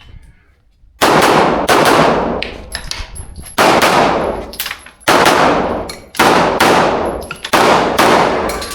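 A 9mm Glock 17 Gen5 pistol firing a string of shots on an IPSC stage, starting about a second in. The shots come in quick pairs about half a second apart, with pauses between. Each shot is loud, with a long echoing tail.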